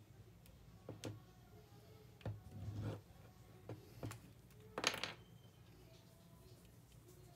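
Handling noise from a McFarlane Batman plastic action figure being turned and posed in the hands: scattered soft clicks and short rustles, the loudest about five seconds in.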